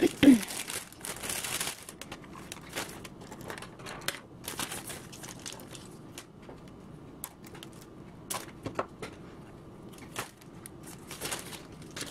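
Thin plastic treat bags crinkling and rustling as they are handled and filled, with scattered light clicks and taps from small plastic toys and pencils.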